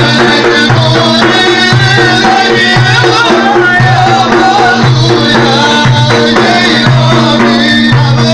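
Large frame drums with jingles beaten in a steady rhythm while a man's voice chants a religious hymn in long, wavering notes, over a steady held low tone.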